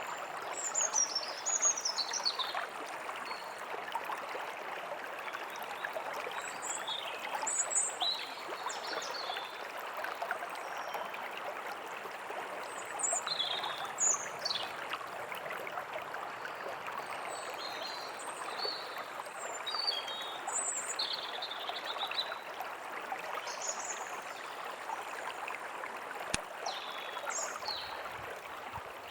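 A stream trickling and rushing steadily, with small birds giving short high chirps and whistles on and off throughout.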